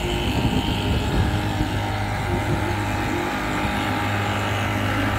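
Motorboat engine running steadily with a low hum, over the rush of water and wind.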